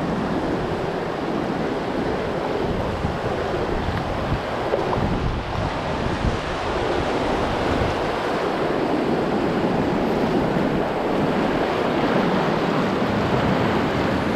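Whitewater rapids rushing and splashing steadily around an open canoe as it runs through them.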